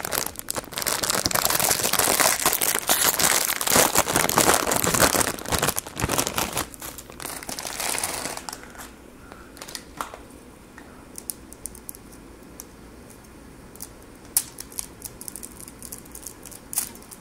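Plastic instant-noodle packet crinkling and tearing as it is ripped open and the dry ramyun block is slid out, for about eight seconds. Then quieter, with a few scattered light clicks and crackles.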